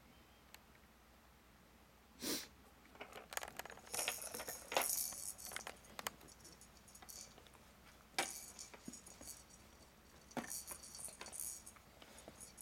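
A baby's plastic rattle toys knocking and rattling on a plastic seat tray as the baby bats at them: scattered light clacks, with jingly rattling about four seconds in and again near the end.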